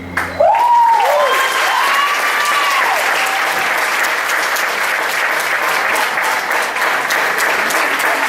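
Audience applauding and cheering, with a few rising-and-falling shrill calls in the first three seconds.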